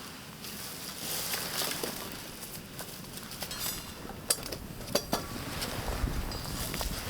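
Rustling and handling noises with a few sharp clicks and short metallic clinks, and wind rumbling on the microphone near the end.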